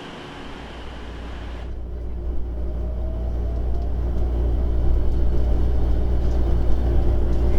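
Low rumble of a JR West 287 series electric train heard from inside the carriage, growing steadily louder as the train gathers speed.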